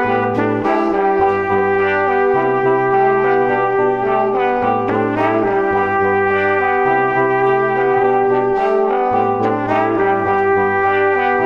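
Background music: a tune of held notes over a bass line that changes pitch about every second.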